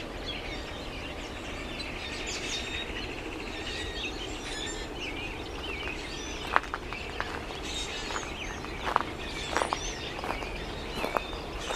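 Many birds singing and chirping at once, overlapping chirps and trills. From about halfway, irregular sharp crunches of footsteps on a path paved with shells break in, the loudest sounds here.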